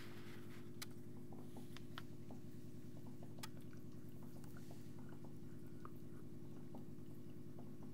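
Aquarium pump humming steadily, with scattered faint clicks and drips of water.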